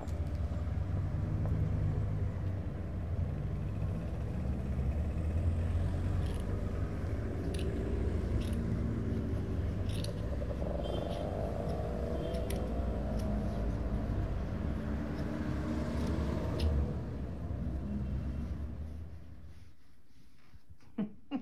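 A steady low rumble with a few short, sharp snips of scissors cutting through plush fabric; the rumble fades out near the end.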